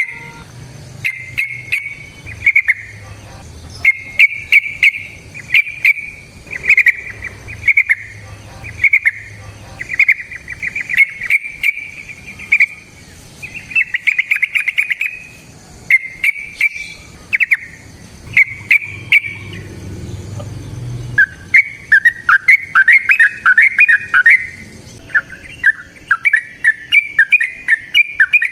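Yellow-vented bulbul (trucukan) singing: short bubbly warbled phrases repeated at about the same pitch, turning into a faster, denser run of phrases in the last third. A low hum lies under the song and cuts off about two-thirds of the way through.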